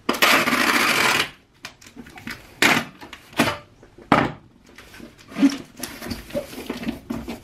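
Clear packing tape pulled off a handheld tape gun across a cardboard box in one long screeching rip lasting about a second. A few short sharp snaps follow as the tape is cut and pressed down, then quieter rubbing of hands smoothing the tape onto the cardboard.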